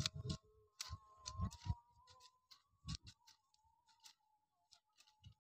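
Hand hoes chopping and scraping into the soil between potato plants: scattered, irregular thuds and scrapes.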